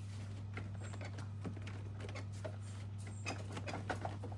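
Porsche Cayman S dashboard being wiggled and pulled by hand to free it, giving scattered light clicks and knocks, a few sharper near the end, over a steady low hum.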